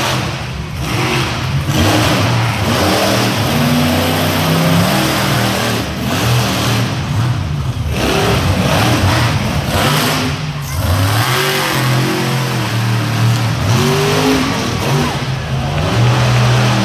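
Monster truck engines revving hard and running loud, the pitch rising and falling again and again as the trucks throttle up and ease off.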